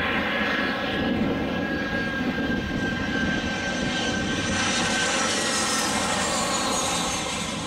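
Jet engines of an easyJet twin-jet airliner passing low on its landing approach: a steady rush with a high whine that falls in pitch as it goes by, fading near the end.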